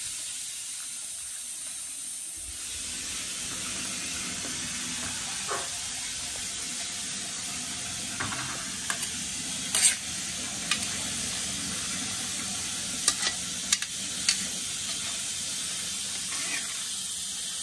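Boiling water hissing steadily in a big wok as a mass of shepherd's purse greens is blanched and stirred. Several sharp clinks in the second half, from a metal skimmer knocking against the wok.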